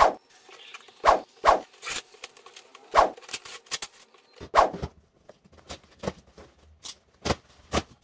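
A cardboard shipping carton being cut open with scissors and its flaps pulled apart: a series of separate sharp snips, tears and crackles.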